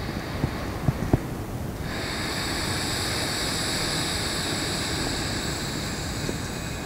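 A long, steady breath exhaled close to the microphone, starting about two seconds in and fading near the end, over a low rumble and a couple of soft knocks from the body shifting on the mat.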